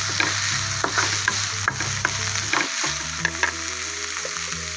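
Cauliflower, onion and tomato sizzling in oil in a pan while a wooden spatula stirs them, with irregular scrapes and knocks of the spatula against the pan that thin out near the end.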